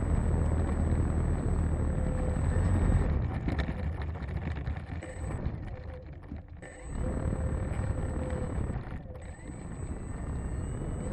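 Onboard sound of a Carbon Cub S2 RC plane's electric motor and propeller running with a steady whine, under heavy wind rumble on the camera microphone. The sound drops away briefly twice, about halfway through and again about two-thirds in, then picks back up.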